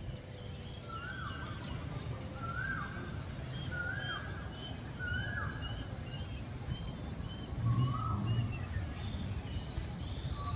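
A bird calling repeatedly, a short note every second or so, with fainter high chirps in between, over a steady low outdoor background rumble.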